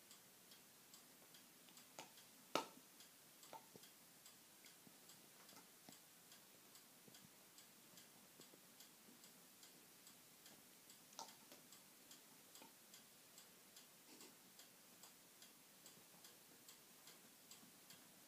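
Near silence with faint, steady, evenly spaced ticking and a few sharper clicks, the loudest about two and a half seconds in and another about eleven seconds in.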